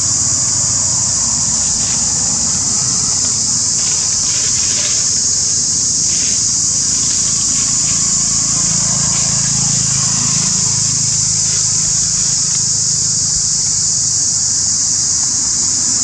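Steady high-pitched hiss of outdoor ambience, with the low hum of road traffic swelling about nine seconds in and fading again.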